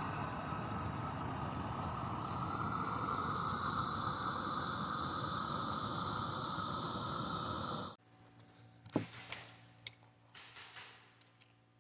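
Mini circular saw running steadily with a high whine for about eight seconds, then cutting off suddenly. A few faint clicks and knocks follow.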